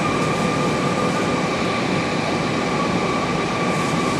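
Steady jet airliner cabin noise inside an Airbus A321: an even rushing rumble with a constant high whine over it.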